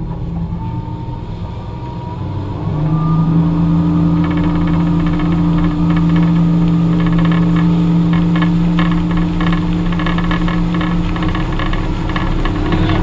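Motorboat engine accelerating to pull a wakeboarder up: its pitch climbs over the first couple of seconds, it grows louder about three seconds in, then it runs steadily at towing speed. Rushing water and wind join it about four seconds in.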